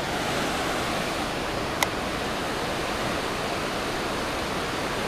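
Steady rush of river water running over rocks, with one sharp click a little under two seconds in.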